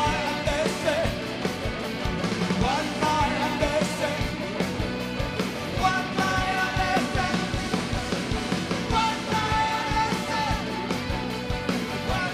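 Live rock band playing an instrumental passage, with a steady drumbeat and sustained guitar or keyboard lines.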